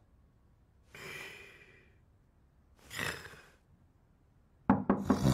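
A sleeping man's breathing: two long, airy breaths, one about a second in and one about three seconds in. Near the end comes a quick cluster of sharp knocks.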